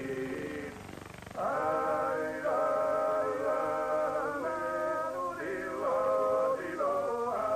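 Male voices singing in long held notes that change pitch every second or so; there is a short quieter break about a second in, then the singing comes back louder.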